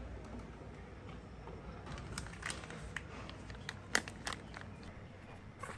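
Light clicks and crinkles of a plastic spice packet being handled and tipped over a steel bowl of peeled pointed gourd, loudest about four seconds in, over a faint low hum.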